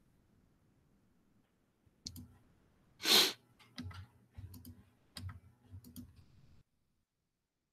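A run of sharp computer mouse and keyboard clicks at a desk, with one louder short rush of noise about three seconds in; the sound cuts off suddenly near the end as the recording stops.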